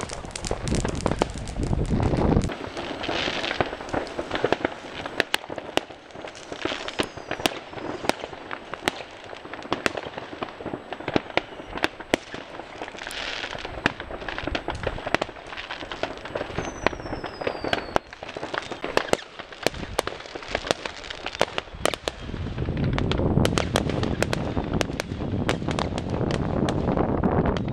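Fireworks going off: a dense run of sharp bangs and crackling firecrackers, with two brief falling whistles. A low rushing noise is heard at the start and again over the last few seconds.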